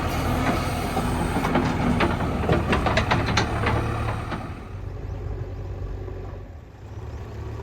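Backhoe loader's diesel engine running steadily, with a quick run of knocks and clatters in the middle. After that the engine sound drops lower and goes on more quietly.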